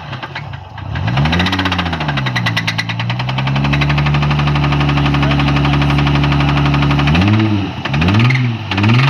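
Nissan 300ZX's twin-turbo VG30DETT V6 revving: one rev about a second in, held at high rpm for a few seconds, then three quick blips near the end, with a rapid knock running through it. The knock is a worn connecting-rod bearing (rod knock).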